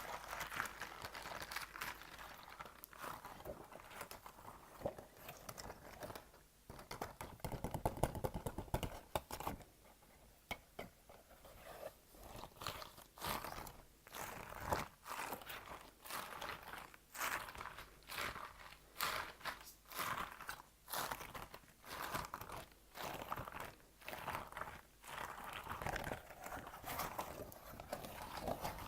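Close-miked ASMR trigger: an object being crinkled and crunched in irregular short strokes, several a second.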